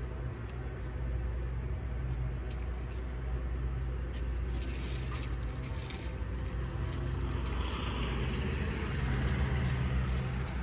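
A road vehicle passing, its noise swelling through the second half, over a steady low rumble.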